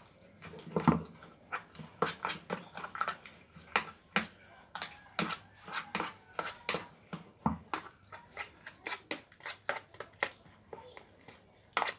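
A utensil clicking and knocking quickly and irregularly against a bowl as eggs are beaten and mixed for pempek lenggang.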